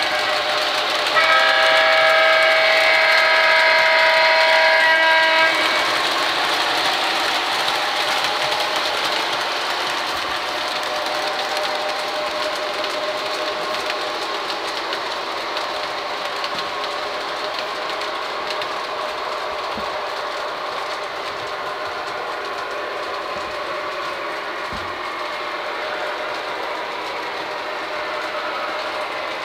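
O-gauge model diesel locomotive sounding its multi-note horn in one long blast starting about a second in, then the steady noise of the train running on the three-rail track, slowly getting quieter.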